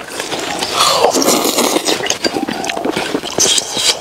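Close-up slurping and chewing of braised lamb intestines eaten like noodles from a bowl with chopsticks, with light clicks and clinks throughout.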